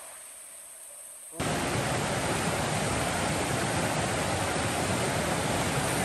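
Mountain river rushing: a steady, even noise of fast-flowing water that cuts in abruptly about a second and a half in, after a quieter start.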